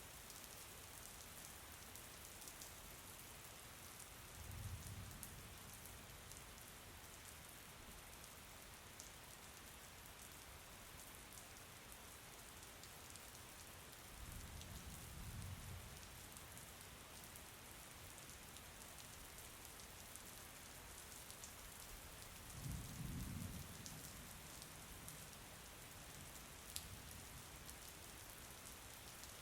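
Steady, faint rain: an even hiss with fine pattering drops. Three brief low rumbles swell and fade, about a quarter, half and three quarters of the way through.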